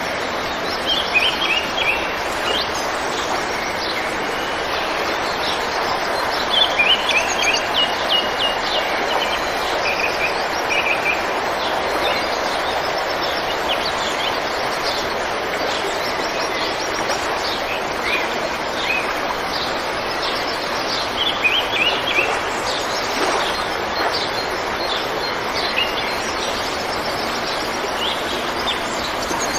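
River water flowing steadily, with birds chirping over it in short bursts every few seconds.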